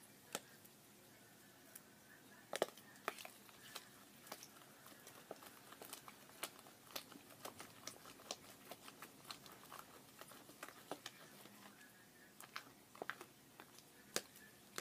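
Homemade glue slime being kneaded and stretched by hand, giving quiet, irregular sticky clicks and pops, with a sharper snap now and then, the loudest about two and a half seconds in.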